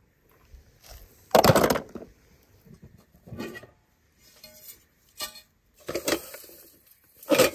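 Diecast toy car dropped into a pot, landing with one loud hit about a second and a half in, followed by a few lighter knocks and clinks as a hand reaches in among the toy cars.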